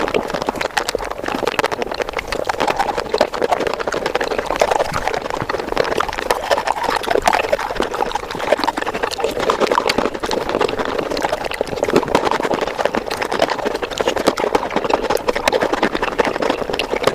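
Close-miked mukbang eating sounds sped up about five times: chewing, smacking and slurping of chocolate ice cream blur into a continuous crackle of rapid, dense clicks.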